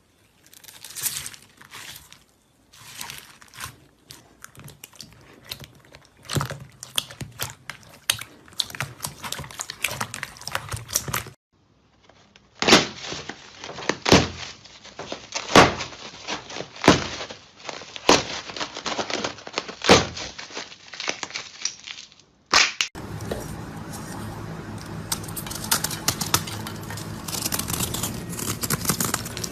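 Slime being handled by hand: wet crackling, squishing and popping clicks, in three separate clips. The middle clip has sharp pops about once a second; the last clip is a dense, steady crackle that grows louder near the end.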